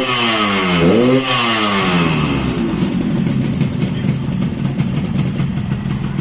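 Yamaha RX-King two-stroke single-cylinder motorcycle engine, revved twice in quick succession. Each rev falls away, and the engine settles into a steady idle after about two and a half seconds. The engine is being tuned for a 'ngorok', a snore-like exhaust note.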